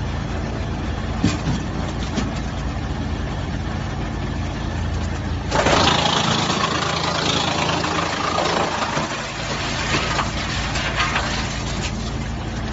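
A 55 kW wood chipper running steadily. About five and a half seconds in, a sudden, much louder chipping noise sets in as wood goes through the cutters, lasting about three seconds before it dies back to the running hum.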